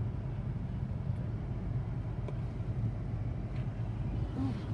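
Steady low engine and road hum heard from inside a car's cabin while it is driven slowly.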